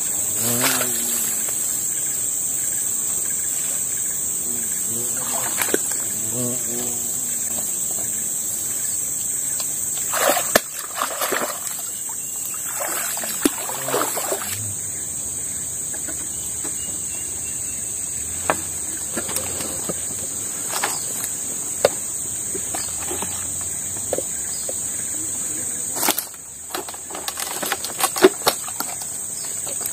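Footsteps wading through shallow, weedy swamp water, sloshing and splashing at times, then snapping and crackling over dead branches near the end. A steady high-pitched insect drone runs underneath.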